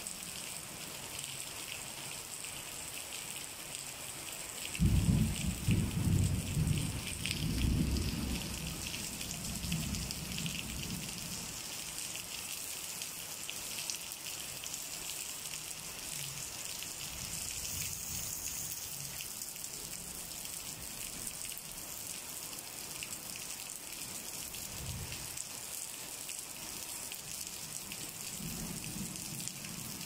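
Steady rain hissing, with a clap of thunder about five seconds in that rumbles on and fades over several seconds. A second, fainter low rumble of thunder comes later.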